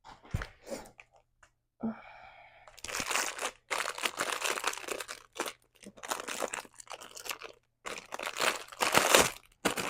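Packaging being torn open and handled: crinkling and tearing in a run of loud, uneven bursts that start about three seconds in, after a few faint rustles.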